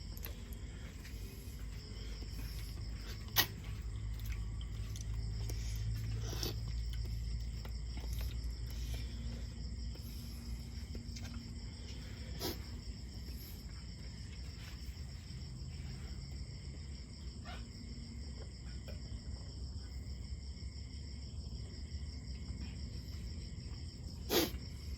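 Steady high chirring of crickets over a low background rumble, with a few sharp clicks scattered through.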